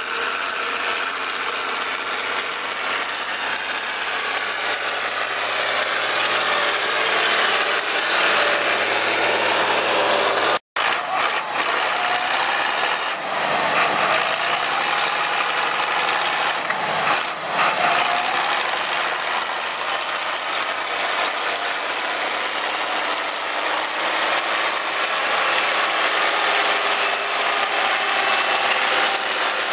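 Case IH 956 XL tractor's six-cylinder diesel engine running steadily under heavy load while pulling a plough through wet soil, heard as a harsh, hissy drone with little bass. The sound drops out for an instant about a third of the way through.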